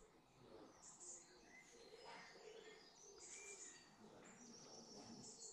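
Near silence with faint birds chirping in short, high notes scattered through.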